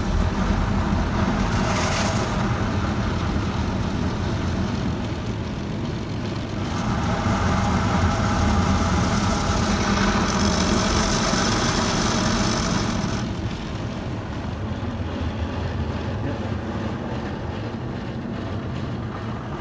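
High-pressure water jets of a Jim Coleman Fusion X car wash spraying over a car, heard from inside the cabin as a steady hiss that grows louder and brighter for several seconds in the middle as the jets pass closest. A steady low rumble runs underneath.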